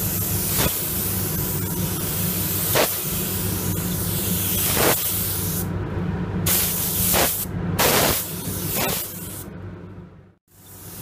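Automotive paint spray gun hissing as it lays blending agent (fade-out thinner) onto the edges of a panel, in several passes with short pauses. It stops near the end.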